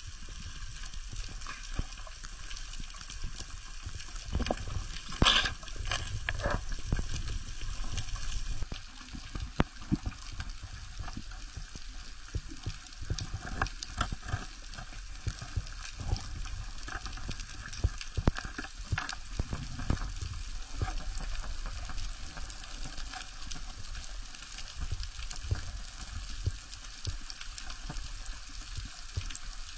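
Underwater reef ambience: a steady fine crackling, with scattered sharp clicks and a few louder knocks about five seconds in, over a low rumble of moving water.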